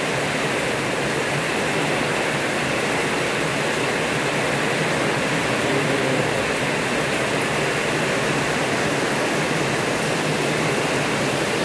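Heavy tropical downpour driven by strong wind: a dense, steady hiss of rain with no let-up.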